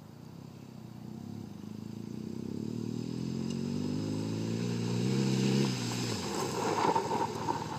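BMW GS adventure motorcycle approaching under power, its engine note growing louder for about six seconds, then dropping away abruptly as the rider makes an emergency stop with both brakes. Tyres skid and scrub over loose dirt to a halt.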